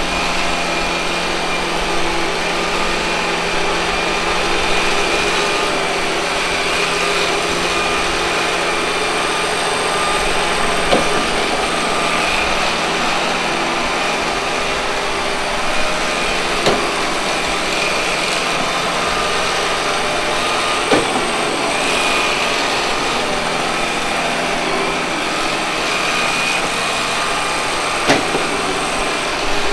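Robot vacuum cleaner running steadily, its suction fan and brush motors giving a constant whirring hum with a high whine. About five short sharp knocks sound over it, the first about eleven seconds in and the last near the end.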